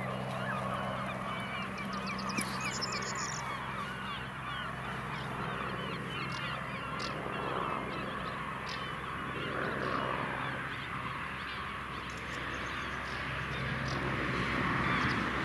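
A large flock of birds calling, with many short calls overlapping without pause, over the steady distant drone of a BK 117 helicopter flying away.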